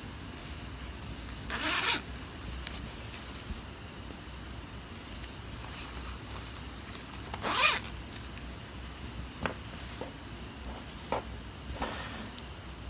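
A zipper on a crochet purse zipped three times in quick strokes: about two seconds in, just past the middle, and near the end. Light handling noise comes between the strokes.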